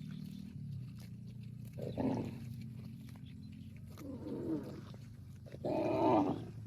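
Cattle mooing: three short calls about two seconds apart, the last the loudest, over a steady low hum.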